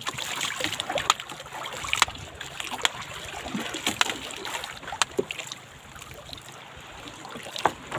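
Irregular sharp knocks and taps in a small boat, about one a second, over water lapping and splashing against the hull.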